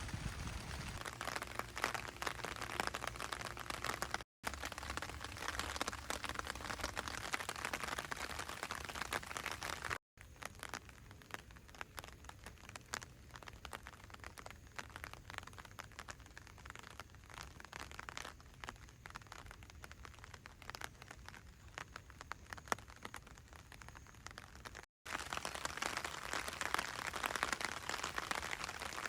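Rain falling, a steady patter of many small drop ticks, heard in several short cuts, one of them quieter.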